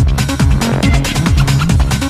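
Fast electronic techno track: a steady kick drum about three beats a second, each kick dropping in pitch, under busy hi-hats and synth sounds.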